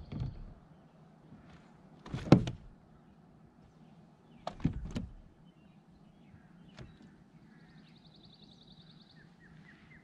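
Hollow knocks and thumps on a plastic kayak hull as gear is handled aboard. There are four, the loudest about two seconds in, the others near the start, around four and a half seconds and near seven seconds.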